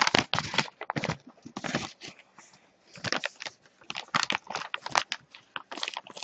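Brown kraft-paper envelope being crinkled and torn open by hand: a run of irregular rustles and rips, with a short pause about two and a half seconds in.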